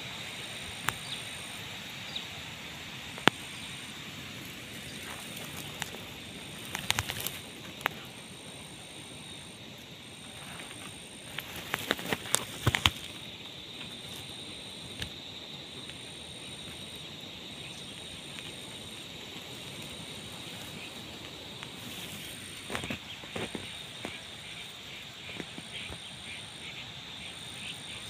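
Insects calling steadily in the grass, with a high short chirp repeating about every second and a half. Dry grass crackles in a few short bursts as it is handled, loudest about halfway through.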